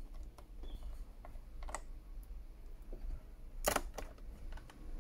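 Small clicks and taps of a precision screwdriver working screws into a laptop's plastic base, with a louder sharp click a little under four seconds in. A steady low hum runs underneath.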